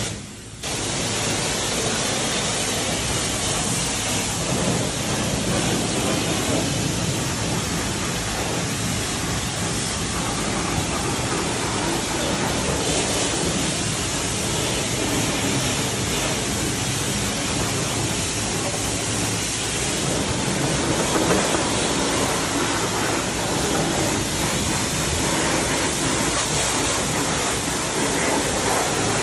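Steady hiss of a water spray washing down a dirt bike, cutting out briefly about half a second in.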